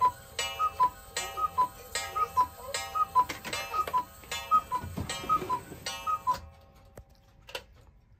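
Mechanical cuckoo clock striking: its two-note bellows "cuck-oo" call, high note then low, repeats about nine times, each call with a struck, ringing note from the spring strike, which the owner has just repaired. The calling stops about six seconds in, leaving a few faint clicks.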